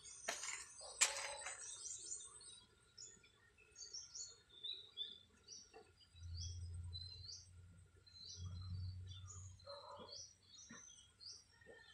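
Small birds chirping over and over with short high notes. A sharp knock about a second in, with rustling around it, and two low rumbles in the middle.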